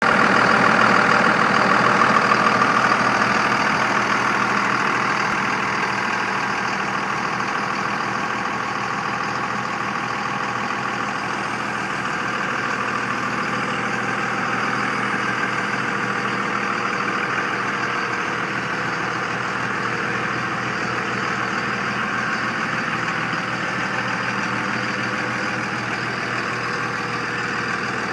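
Cummins 5.9-litre inline-six turbo diesel of a 2000 Dodge Ram 3500 dump truck idling steadily. It is loudest for the first few seconds, then a little quieter.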